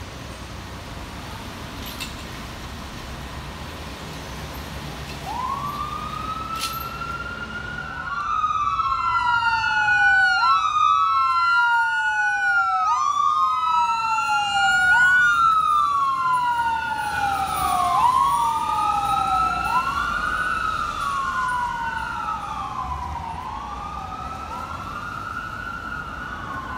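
Electronic siren of a 2017 Spartan Gladiator fire engine responding code 3. It comes in about five seconds in, with traffic and engine noise beneath. The wail rises quickly and falls more slowly about every two seconds, and a second sweep overlaps it out of step. It is loudest in the middle as the engine passes and fades toward the end as it drives away.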